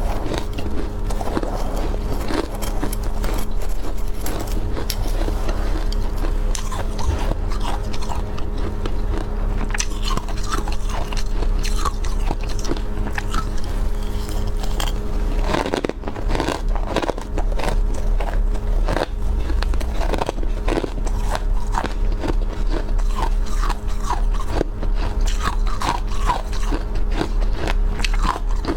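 A person biting and chewing powdery freezer frost close to the microphone: dense, rapid crunching throughout, over a steady low hum.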